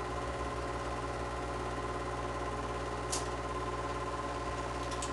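A small machine running with a steady whirring hum, and a single sharp click about three seconds in.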